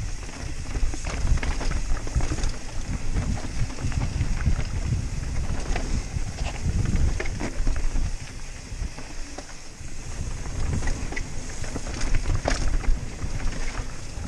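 Wind rumbling over a helmet camera's microphone while a Rocky Mountain Slayer full-suspension mountain bike rolls down rocky slickrock, with scattered clatters and knocks from the tyres, chain and frame hitting rock.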